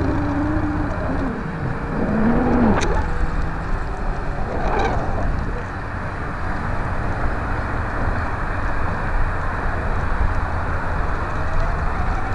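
Steady wind rushing over the microphone of a small camera carried aloft on a kite. A wavering hum runs through the first two or three seconds, and there are two brief clicks about two seconds apart.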